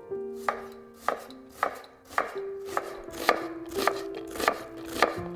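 Large kitchen knife chopping a red onion on a wooden cutting board: about ten sharp knife strikes on the board, roughly two a second, coming a little faster toward the end.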